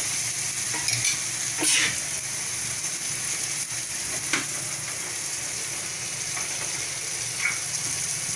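Onion-tomato masala sizzling in oil in a steel kadhai, a steady frying hiss. A spoon scrapes against the pan a few times, most loudly about two seconds in.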